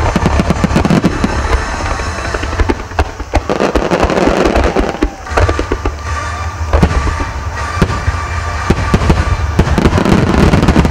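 Japanese fireworks display: a barrage of aerial shells bursting, dozens of bangs in quick succession with a steady rush of noise between them, thinning out briefly mid-way before building again near the end.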